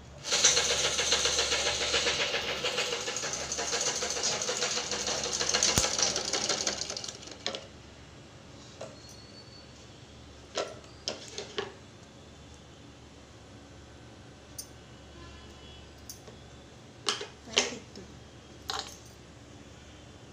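Usha sewing machine running fast, a rapid stitching clatter that stops about seven seconds in. Afterwards only a few separate clicks and knocks.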